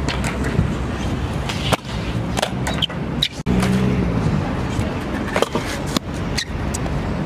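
Stunt scooter wheels rolling over concrete, with a number of sharp clacks as decks and wheels hit the ground.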